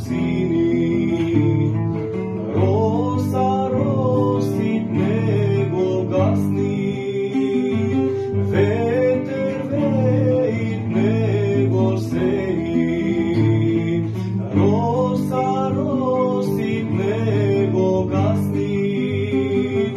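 Music: a Macedonian folk tune on guitars, a solo guitar playing an ornamented melody with sliding notes over a strummed rhythm guitar.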